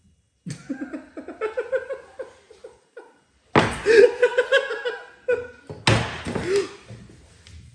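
Laughter in three bursts: a quick pulsing chuckle starting about half a second in, then louder, fuller laughter at about three and a half seconds and again near six seconds.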